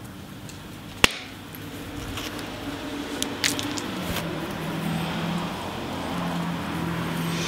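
Copper billet striking a cobble of cherty mudstone, one sharp crack about a second in, followed by a few lighter clicks and taps around three to four seconds in. A low steady hum comes in from about four seconds.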